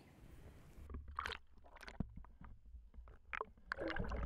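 Underwater sound from a camera submerged in lake water: a low rumble with irregular sloshing gurgles and sharp clicks, starting about a second in after faint hiss.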